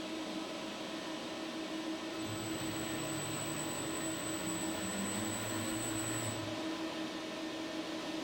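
ABB IRB 1600 industrial robot arm's servo motors running as the arm swings between poses. From about two seconds in to about six seconds in, a high steady whine and lower tones that shift in pitch rise over a constant machine hum.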